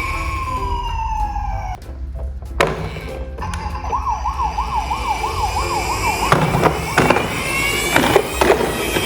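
Emergency-vehicle siren: a slow wail that rises and falls and cuts off just under two seconds in, then, after a short break, a fast warbling siren for about two seconds. Several sharp knocks come in the last few seconds.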